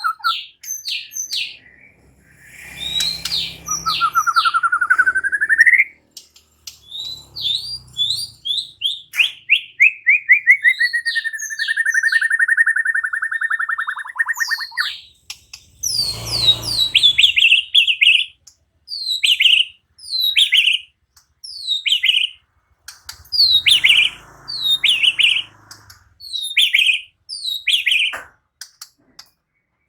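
White-rumped shama singing a varied song: quick whistled notes and trills, a long trill sliding gradually downward, then a series of short falling whistles repeated about once a second.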